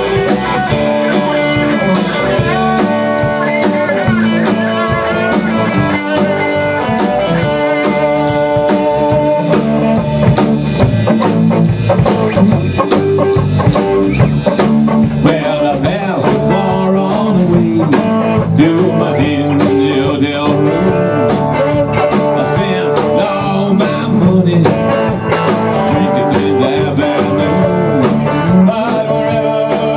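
Live band playing a blues-rock number: electric guitars, bass guitar and drum kit with a steady beat.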